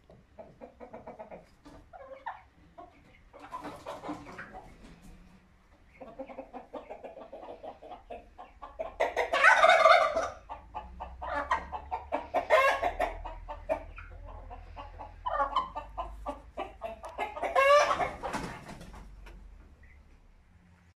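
Chickens clucking, with rapid runs of calls and several louder calls about halfway through and near the end.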